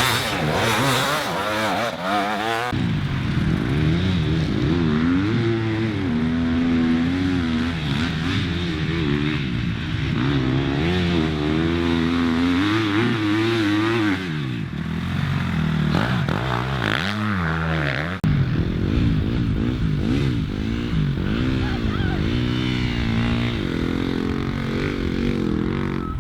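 Off-road motorcycle engines being ridden hard, the pitch climbing and dropping again and again with throttle and gear changes. The sound changes abruptly about 3 seconds in and again about 18 seconds in.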